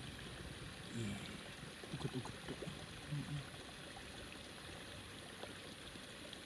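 Water running or trickling in a steady, even wash, with a few short, soft low sounds about one to three and a half seconds in.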